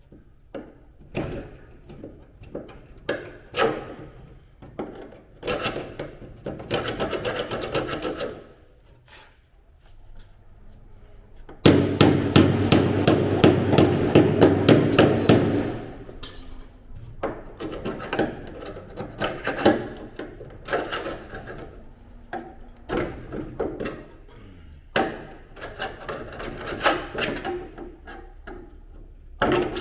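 Metalwork on a car's suspension top panel: irregular hammer knocks and taps, with a loud run of rapid strikes lasting about four seconds in the middle.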